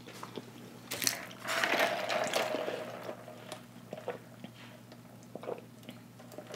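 A drink sucked up through a straw from a foam cup: a light click about a second in, then a couple of seconds of liquid sipping, followed by quieter small mouth sounds.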